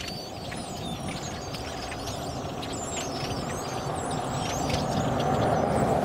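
A huge flock of blackbirds calling: a dense chatter of short, squeaky, wavering whistles over a low rushing noise that swells louder in the last couple of seconds.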